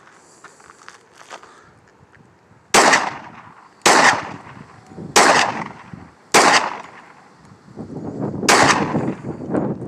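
Gun firing four single shots a little over a second apart, each with a short echo, followed by a duller burst of noise near the end.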